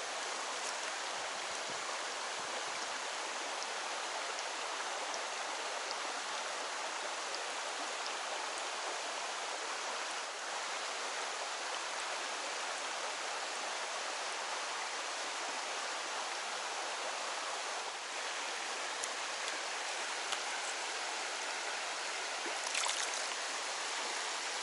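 Mountain stream water rushing steadily over rocks, with a short louder splash or scrape near the end.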